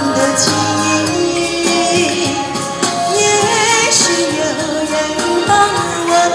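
A woman singing a Mandarin-language song into a handheld microphone over a recorded backing track, both amplified through a small portable loudspeaker.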